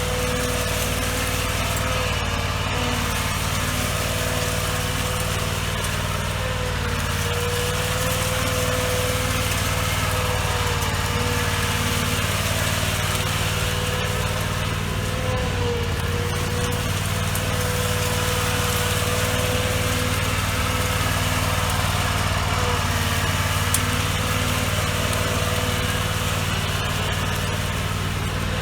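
Riding lawn mower engine running steadily under way, with a whine that wavers slightly in pitch over the steady hum.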